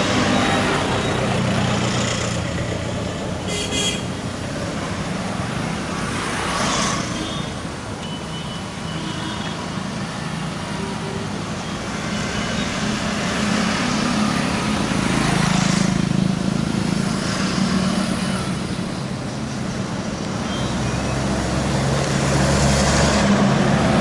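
Road traffic: a steady engine hum, with vehicles passing by every several seconds.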